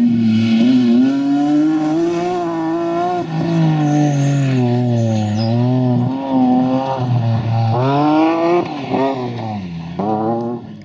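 BMW rally car's engine under hard driving, its pitch climbing and dropping as it revs through the gears. Near the end it gives several quick sharp revs in a row.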